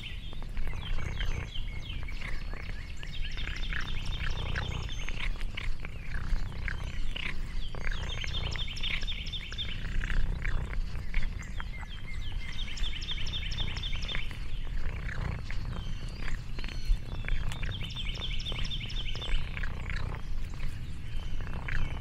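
Outdoor ambience: a high, evenly pulsed trill that comes in bursts of about a second and a half and repeats every four to five seconds, over close, irregular crackling and rustling.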